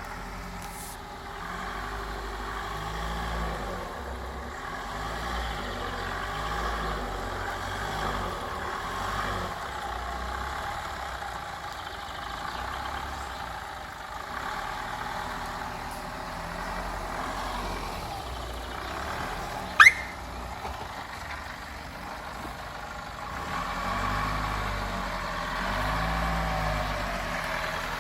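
Off-road 4x4 engine running, its revs rising and falling, during a mud recovery. About two-thirds of the way through, one brief, sharp rising squeak rings out, the loudest sound here.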